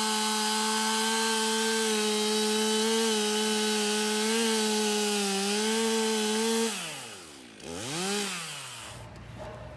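Stihl MS 362 C two-stroke chainsaw held at full throttle, cutting into a wooden power pole. After about seven seconds the revs fall away, there is one quick blip of the throttle, and the engine drops back.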